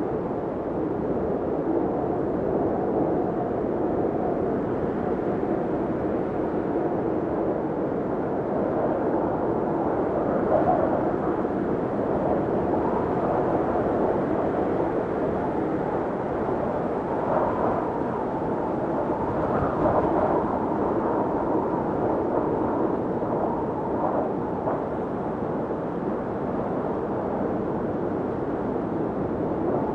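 Blizzard wind blowing steadily and hard, with gusts swelling about ten seconds in and again around seventeen to twenty seconds.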